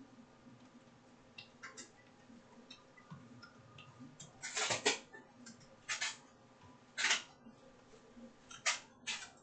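Slow typing on a computer keyboard: single key clicks a second or so apart, with a quick cluster of keystrokes about halfway through and the loudest clicks in the second half.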